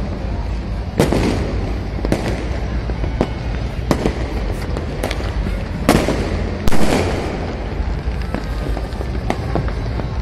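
Aerial fireworks going off overhead: a string of sharp bangs over continuous crackling, with two louder bursts, one about a second in and one about two-thirds of the way through.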